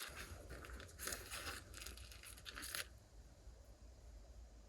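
Food packaging being handled, crinkling and tearing in short rustling bursts for about three seconds, then it goes quieter.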